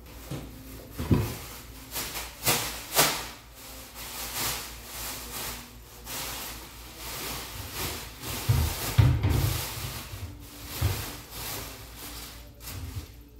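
Plastic bag crinkling and rustling as it is shaken out and handled, with a few dull knocks about two-thirds of the way through.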